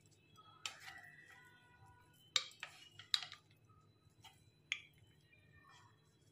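Wooden spatula knocking and scraping against the pan as cooked khichdi is pushed out onto a ceramic plate: a handful of faint, sharp taps and clinks at uneven intervals, a few with a short ring after them.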